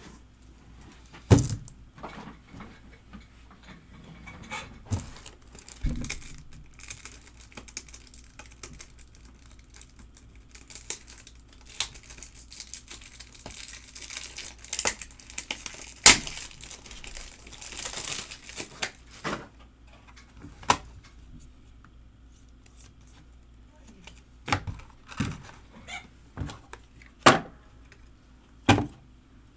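Foil trading-card pack wrappers being torn and crinkled, with scattered sharp clicks and knocks of cards and holders being handled on a table. The rustling is thickest through the middle.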